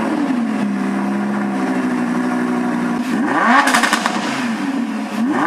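Lamborghini Huracán's V10 on its stock exhaust, revving once and settling to a steady idle, then blipped several times in quick succession over the last couple of seconds.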